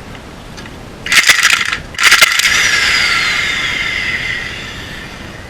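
Heavy steel parts clanking together as an improvised slide hammer (harmonic balancer on a bearing puller) is taken off a pulled axle shaft. About two seconds in comes a hard metal strike, and the part rings out, fading over about two seconds.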